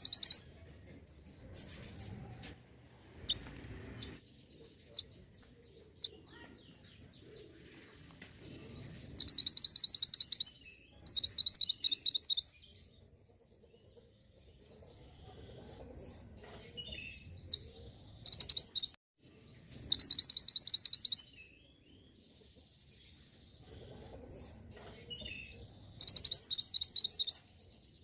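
Songbird singing in short bursts of rapid, high repeated notes, each burst about a second long, about six times, with softer scattered chirps in between.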